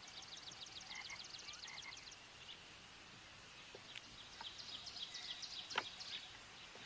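Countryside wildlife calls: a fast, high trill of clicks for about two seconds, a few short chirps, then the trill again from about four seconds in. A single sharp click comes a little before six seconds.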